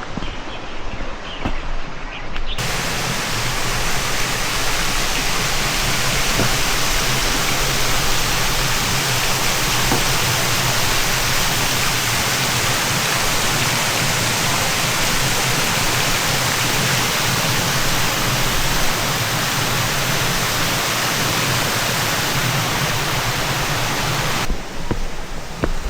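Loud, steady rush of flowing water, like a weir or waterfall, that starts abruptly a couple of seconds in and cuts off abruptly near the end, with faint footsteps before it starts.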